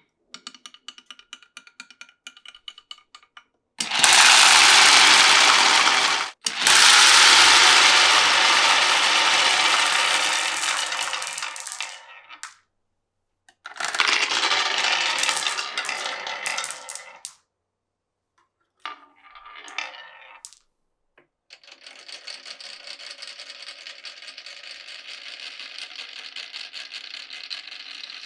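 Marbles rolling and clattering down a marble run: a light ticking for the first few seconds, then several loud rolling runs that each fade away or stop abruptly, and a steady rattling roll over the last six seconds.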